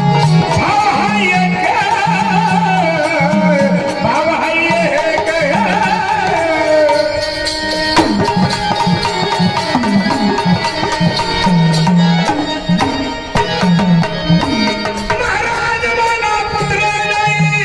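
Marathi devotional folk music of the gondhal tradition: a wavering, ornamented melody over a repeating hand-drum rhythm, with steady held tones underneath.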